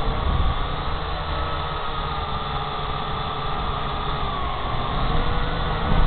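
Syma X8 toy quadcopter's electric motors and propellers whining as the drone flies, picked up by its own onboard camera. The whine dips in pitch about four and a half seconds in and rises again near the end as the throttle changes, over a heavy low rumble of wind and vibration on the microphone.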